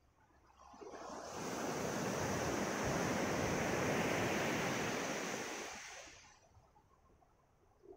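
Ocean wave breaking and washing up a pebble beach: one swell of surf hiss that builds about a second in, peaks midway and fades out near the end.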